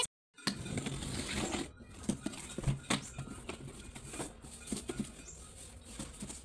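Handling noise from a package being unboxed: irregular rustling with scattered light clicks and taps. The sound drops out completely for a moment just after the start.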